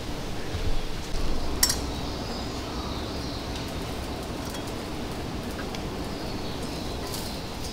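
Tableware clinking sharply twice, about a second and a half in and again near the end, over a steady outdoor background hiss.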